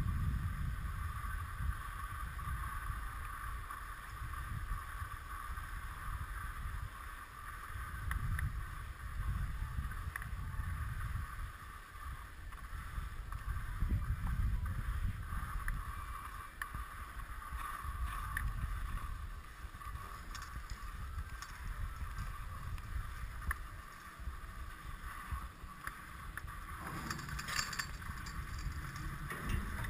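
Skis sliding over snow while being towed up a Poma surface lift, with wind buffeting the microphone in uneven gusts. Near the end a brief clatter as the tow passes a lift tower.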